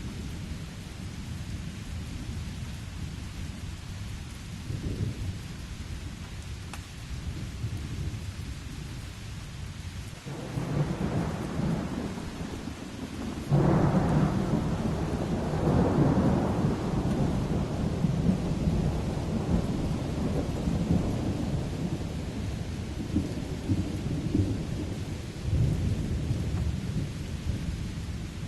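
Steady rain with rolling thunder: a rumble builds about ten seconds in, a sudden louder clap follows a few seconds later and rolls on for several seconds, and another roll swells near the end.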